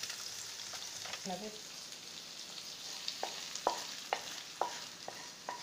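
Fried chicken giblets and onion still sizzling in a hot frying pan, then a wooden spoon scraping them out of the pan into a bowl of rice, with short sharp scrapes and knocks about twice a second over the second half.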